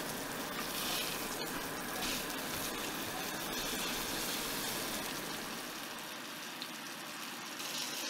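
Filet mignon sizzling steadily as it sears in butter in a very hot cast-iron skillet.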